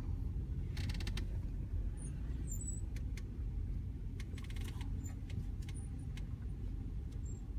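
Car cabin noise while driving: a steady low rumble of road and engine, with a few light clicks and rattles, most about a second in and again around three seconds in.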